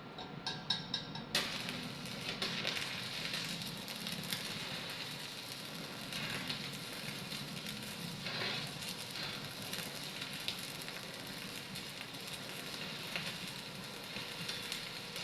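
Electric arc welding: a few short sputters as the arc is struck, then the arc catches about a second and a half in and crackles and sizzles steadily.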